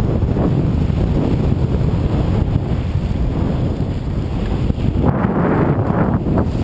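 Wind buffeting a GoPro's microphone on a moving mountain bike, over steady low rumble from the tyres and bike on the dirt singletrack. A louder, harsher stretch of trail noise comes about five seconds in and lasts about a second and a half.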